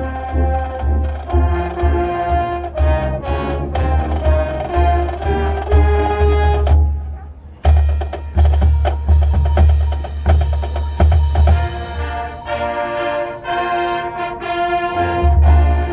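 Marching band music led by its percussion: drums and mallet keyboards playing a rhythmic passage. The music breaks off briefly about seven seconds in, then comes back in sharply.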